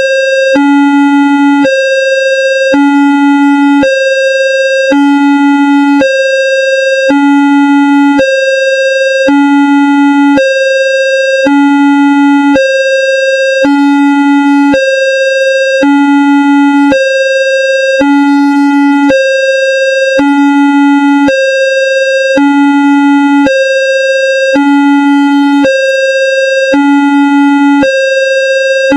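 Indonesian railway level-crossing warning alarm, a homemade sound effect: two electronic tones, one low and one higher, alternating about once a second in a steady, unbroken cycle.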